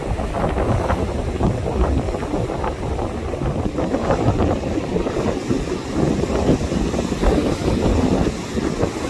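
Hurricane-force wind buffeting the microphone over heavy surf breaking on the shore: a loud, unsteady low rumble with no clear tone.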